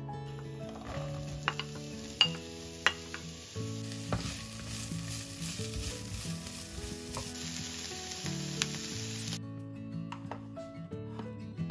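Chopped onions sizzling in hot oil in a frying pan, stirred with a wooden spatula that clicks and scrapes against the pan. The sizzling cuts off suddenly near the end, leaving soft acoustic guitar music that plays underneath throughout.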